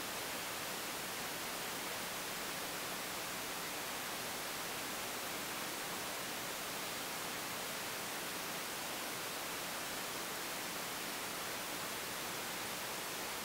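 Steady, even hiss of recording noise (static), with nothing else heard.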